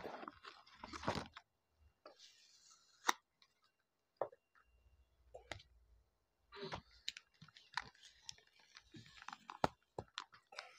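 Cardboard chip boxes and their inner packaging being handled and opened by hand: scattered clicks and taps of card, with short spells of rustling near the start and again in the second half.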